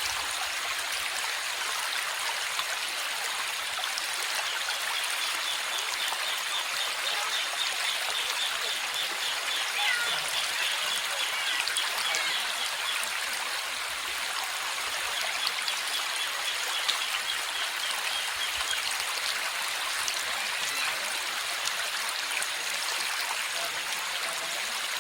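Small stream running steadily, an even rushing of flowing water, with a faint high rapid trill heard twice in the middle.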